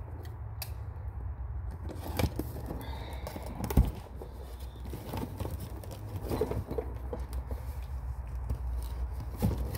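A cardboard box being handled and opened: scattered scratches, taps and knocks as fingers pick at the packing tape and turn the box, with one sharper knock about four seconds in, over a steady low hum.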